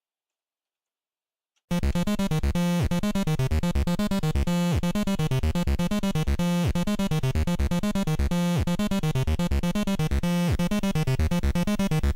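Commodore 64 SID chip, modded with a feedback potentiometer that loops its output back into its inputs, playing a synthesizer test pattern. After a moment of silence the sound starts abruptly about two seconds in: a fast run of chip notes over a steady bass note, the phrase repeating about every two seconds.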